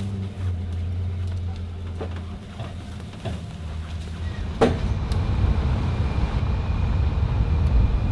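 Pickup truck driving with its engine running while towing a trailer of round bales. A steady low hum gives way to a rougher road rumble that grows louder, with a single knock about four and a half seconds in.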